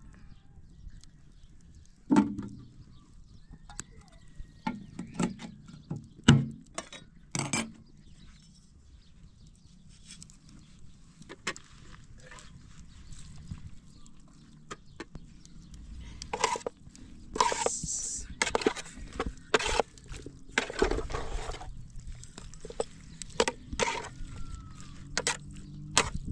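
A metal slotted spoon knocking and scraping against an aluminium cooking pot as chopped tomatoes are stirred: scattered clinks at first, then a busier run of knocks and scrapes in the second half.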